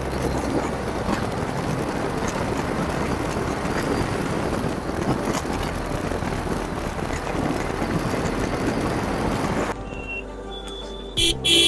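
Wind rush and road noise while riding a motorcycle, a steady dense roar that cuts off abruptly near the end. A quieter steady engine hum follows, then two short, loud, high-pitched beeps.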